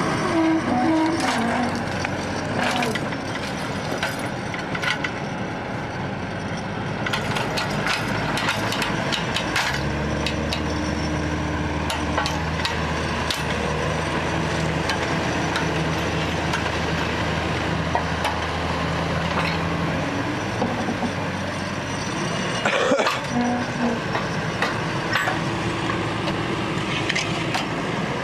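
Diesel engines of a loader and tractors running under load as a cultivator stuck in mud is pulled out on a chain, with a steady engine note held for about ten seconds in the middle and scattered knocks.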